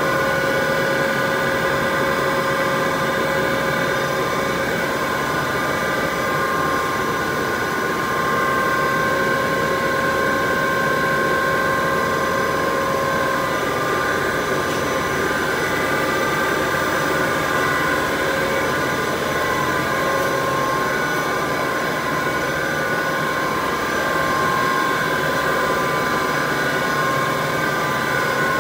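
Running HDPE pipe extrusion line machinery: a steady, loud mechanical din with a constant whine of several tones over an even hum, unchanging throughout.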